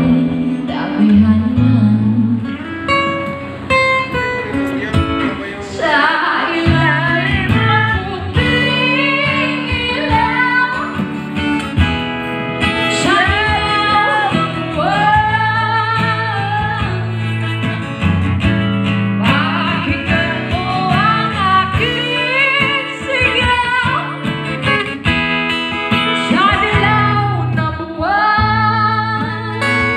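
A woman singing into a microphone, accompanied by guitar.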